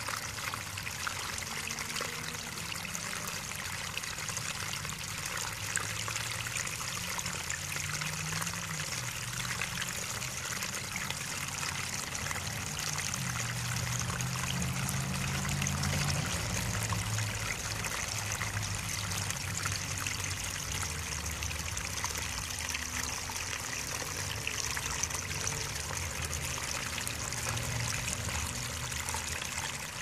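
A small cascade of water trickling and splashing over a low earthy ledge into a shallow pool, a steady, even patter.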